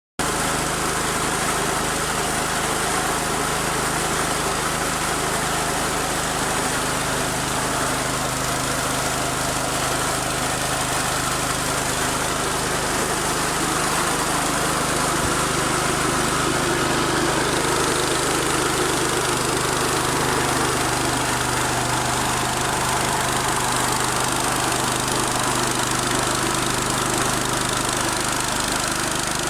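Small rice milling machine, rated at 250 kg per hour, running steadily: a constant low machine hum with a broad hiss over it, with no change in speed.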